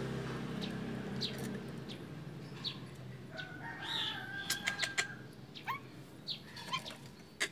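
A caged Nias hill myna giving short, sharp, sweeping alarm calls one after another: the frightened calls of the bird. A busier run of calls comes about three to four seconds in, followed by a few sharp clicks.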